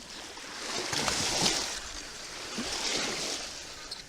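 Water splashing and washing at the shoreline in two swells, about a second and a half apart.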